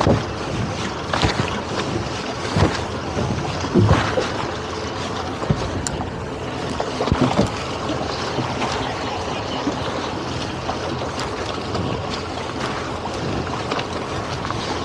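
Wind buffeting the microphone over water lapping at a boat's hull, with a few sharp knocks and thuds in the first half as tow line is hauled in by hand aboard the towboat.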